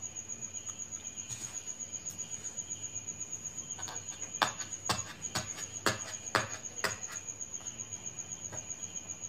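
A faint high-pitched tone pulsing about seven times a second, with a run of about ten sharp clicks in the middle.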